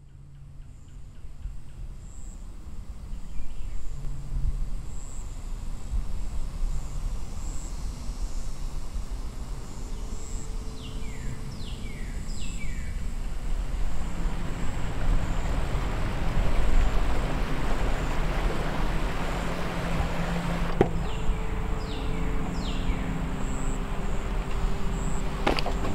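Woodland ambience fading in: a steady low rumble and wash of noise that swells in the middle, with birds giving short falling chirps a few times and a sharp click near the end.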